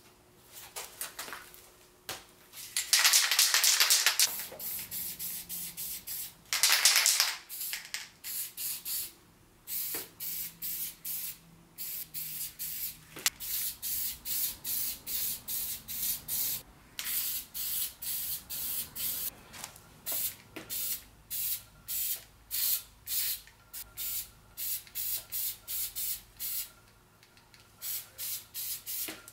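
Aerosol spray-paint can spraying: two longer blasts a few seconds in, then a long run of quick short puffs, about two a second, as the paint is dusted on.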